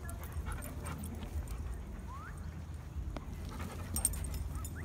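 A dog panting, with a short rising whine about two seconds in and another near the end; a sharp tap sounds about four seconds in.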